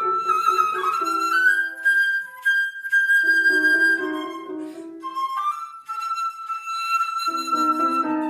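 Flute and piano duo: a concert flute holds long notes, stepping up about a second in, over repeated chords on a grand piano. The piano drops out twice, leaving the flute alone, and comes back near the end.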